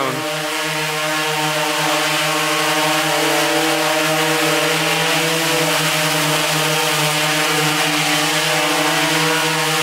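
DJI Inspire 1 quadcopter hovering on its four motors and 13-inch propellers, then easing down lower: a loud, steady buzzing hum with a strong low tone and many even overtones, holding one pitch.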